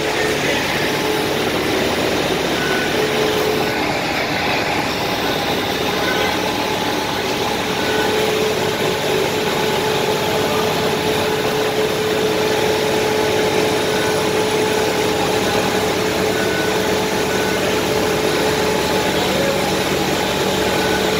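Heavy equipment engine running steadily at an even speed, a constant tone with no revving.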